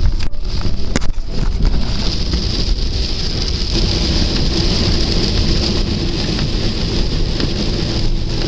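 Steady road noise inside a car driving on a wet road in rain: hiss of tyres on the wet surface over a low engine and road rumble. A couple of sharp clicks come near the start.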